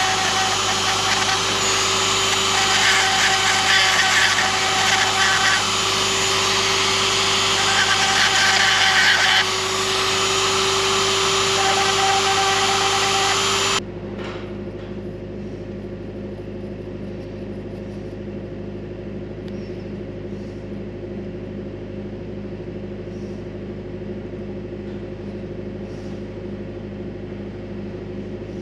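Hand-held high-speed rotary tool whining as a small bit grinds at a radiator fin around a pinhole leak, with scratchy grinding swelling and fading as the bit bites and its pitch shifting slightly under load. It stops abruptly about 14 seconds in, leaving only a steady low hum.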